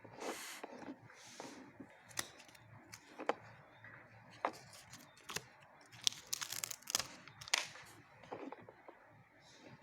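Close-up handling sounds while making slime: a string of irregular sharp clicks and short rustling, crinkling bursts, busiest a little past the middle.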